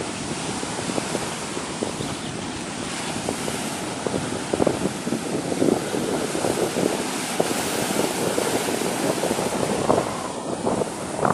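Sea waves washing and surging continuously, with wind buffeting the microphone.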